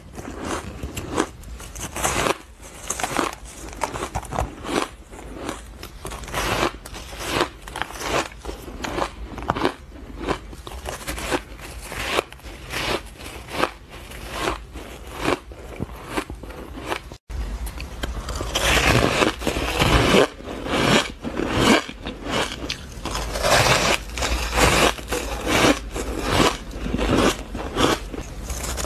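Close-miked biting and crunching of fluffy, frosted ice: crisp irregular crunches with chewing in between. A little past halfway the bites become louder and more frequent.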